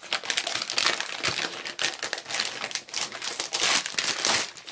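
Foil-lined paper wrapper being crumpled and pulled open by hand: a dense, irregular run of crinkling crackles.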